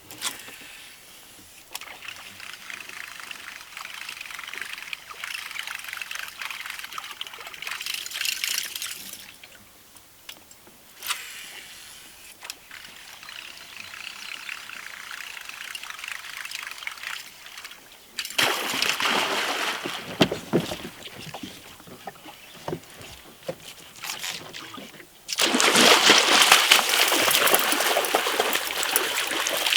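Water splashing and trickling at the surface, with no pitched sound. There are two louder, longer bouts of splashing, one about two-thirds of the way in and one near the end.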